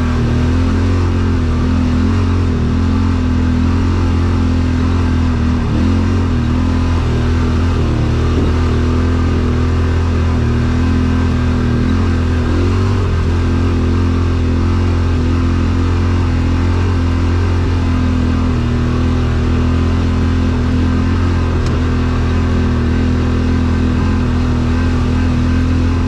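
Yamaha Wolverine RMAX2 1000 side-by-side's parallel-twin engine running steadily under way on a rocky trail, an even low drone with only slight wobbles in pitch.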